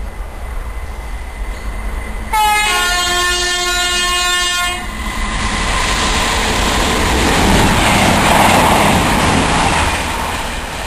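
A Voyager diesel-electric multiple unit sounds its horn once, a held chord of about two and a half seconds, a couple of seconds in. It then runs past at speed, the rush of its engines and wheels building to its loudest near the end.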